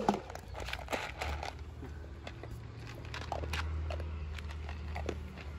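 A dog crunching dry kibble from a plastic bowl: scattered short, crisp crunches and clicks, with a sharp knock right at the start, over a low steady hum.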